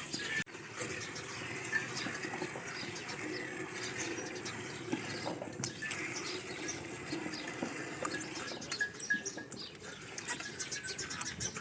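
Water running steadily from a tap, with small irregular splashing ticks.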